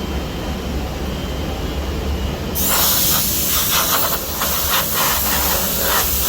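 Steady low hum of a Biesse Rover A Smart CNC machining centre, with a loud hiss starting suddenly about two and a half seconds in and running for about four seconds.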